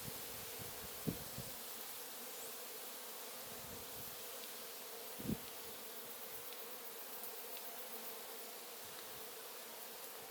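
Honeybees humming in a steady drone around an opened hive, with a soft knock about a second in and a louder thud about five seconds in.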